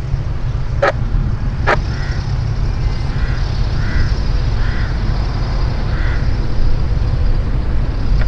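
Cessna 414A Chancellor's twin turbocharged piston engines running at low power as the aircraft taxis, heard as a steady low drone. Crows caw about five times, roughly a second apart, and there are two sharp clicks about one and two seconds in.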